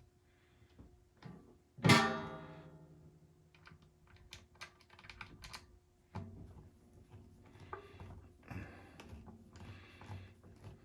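A sharp knock on the hollow canister of a wet/dry vacuum about two seconds in, ringing out for about a second like a drum. Then a run of small clicks and taps with some rustling as the vacuum's parts are handled.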